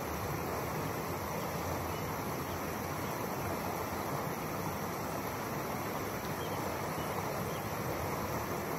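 Steady rush of flowing creek water, an even noise that neither rises nor falls.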